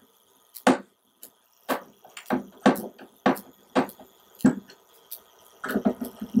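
Screwdriver turning a small screw back into a sheet-metal cover, giving a series of sharp clicks about two a second, with a denser clatter near the end.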